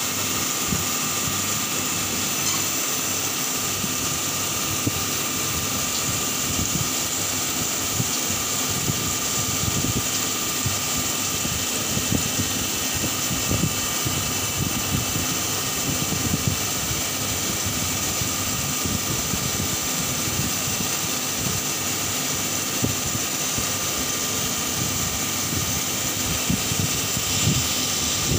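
Double-spindle turn-mill CNC machine turning a workpiece under flood coolant: the steady hiss of coolant spray over the machine's running noise, with steady high-pitched tones and irregular low crackling throughout.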